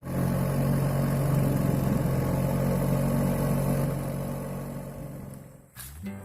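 Small boat engine running steadily, then fading away about five seconds in; music starts right at the end.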